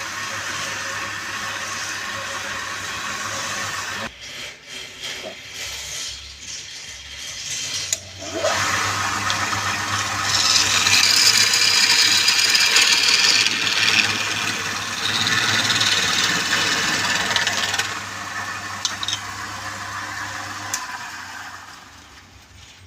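Wood lathe running with a steady motor hum while a tool works the spinning wood, giving a loud hiss that swells about ten seconds in and fades near the end.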